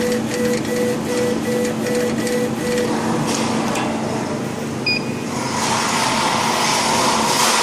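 CO2 laser engraving machine's head rastering back and forth, its stepper motors whining in short repeated strokes about four to five a second over a steady machine hum; the strokes stop about three seconds in. A short beep follows near the middle, then a louder steady rushing noise toward the end.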